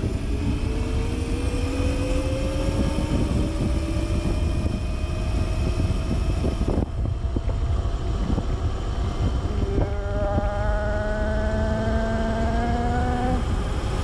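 Brushless electric motor of a Razor electric dirt bike with a 48-volt eBay 2 kW kit, whining and rising slowly in pitch as the bike accelerates at full throttle, over heavy wind rumble on the microphone. The whine breaks off about seven seconds in and comes back near ten seconds in, climbing again.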